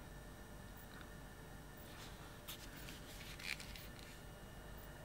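Quiet room with a few faint handling sounds: light clicks and a soft rustle about two to four seconds in.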